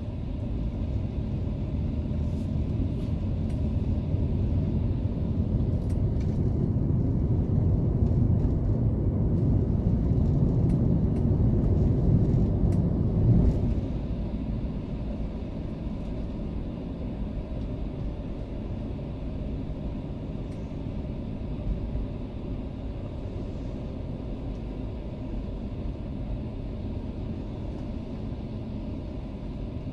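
Driving noise heard inside the cabin of a Mercedes-Benz E320 (W210): a steady low rumble of engine and tyres. It builds over the first dozen seconds, drops suddenly a little under halfway through, then settles lower and steady.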